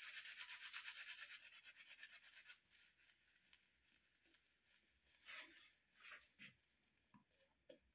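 Badger-hair shaving brush lathering a bearded face: faint, fast, rhythmic bristly scratching for about the first two and a half seconds, then a few separate strokes.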